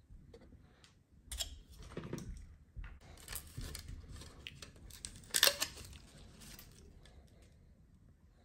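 Handling noises: irregular clicks, taps and rustling as a radio receiver and its wires are fitted onto a metal-plate RC motorcycle frame, with the loudest knock about five seconds in.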